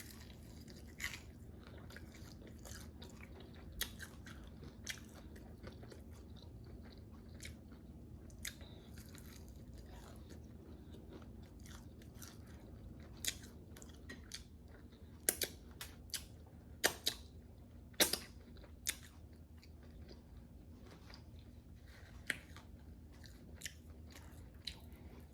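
Close-miked chewing and crunching of crispy fried chicken wings, scattered crunches over a steady low hum, with the loudest, sharpest bites bunched together about fifteen to nineteen seconds in.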